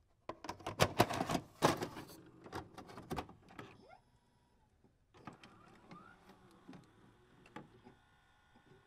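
A quick run of sharp mechanical clicks and clatter, then sparser clicks with a short rising whine; faint steady tones come in near the end.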